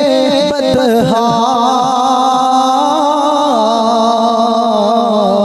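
A man singing an unaccompanied devotional Urdu naat into a microphone in a slow, ornamented style. After a short phrase he holds one long wavering note from about a second in, stepping down in pitch partway through.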